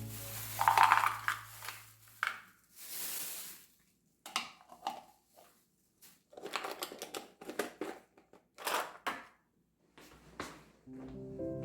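Kitchen items being handled while a refrigerator is cleaned: irregular clicks, light clatters and rustling, with a short hiss about three seconds in.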